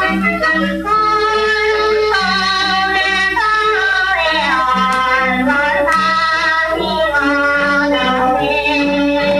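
A woman singing a slow song with a wavering vibrato on her held notes, over instrumental accompaniment with a steady pattern of low notes.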